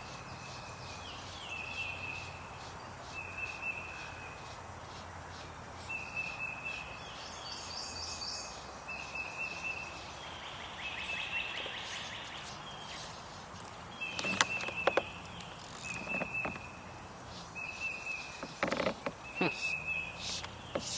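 Outdoor wildlife calls: a short high trill repeats about every second and a half, with a few higher chirps in between. A handful of sharp knocks come about two-thirds of the way through and again near the end.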